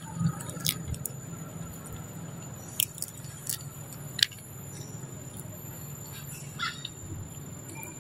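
Sharp clicks and cracks of a macaque breaking open and chewing peanuts in their shells, a few separate snaps a second or so apart, over a steady low hum and a thin, steady high whine.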